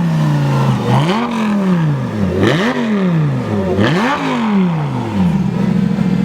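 Sports car engine revved in three quick throttle blips, each rising sharply in pitch and falling back, then settling to a steady idle near the end.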